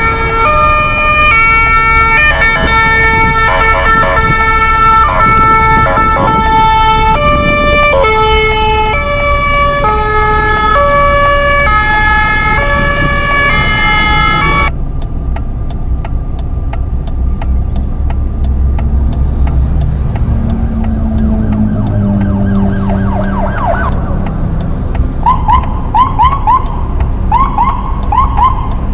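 Dubbed emergency-vehicle sound effects over a steady low vehicle rumble. First comes a run of stepped electronic tones changing pitch note by note. About halfway this cuts off abruptly; a siren then winds up, and near the end it switches to fast yelps about twice a second.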